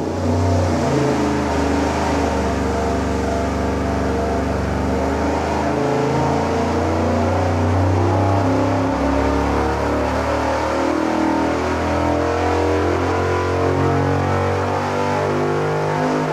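Carbureted V8 on an engine dyno running loud and steady under a wide-open-throttle power pull, fitted with stiffer dual valve springs.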